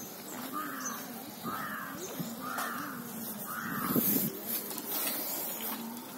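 Crow cawing outdoors: four harsh caws about a second apart, with faint chirps of small birds. A brief louder bump about four seconds in.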